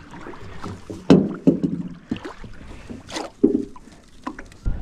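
Irregular knocks and clunks of a collapsible hoop crab net and its metal rings bumping against the metal hull of a small boat as the net is handled and lifted over the side. Near the end comes a louder rush of water sloshing.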